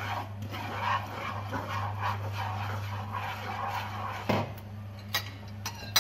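Wooden spatula scraping and stirring sugar and minced ginger around a nonstick frying pan in rhythmic strokes, then a few sharp knocks of wooden utensils against the pan from about four seconds in, over a steady low hum.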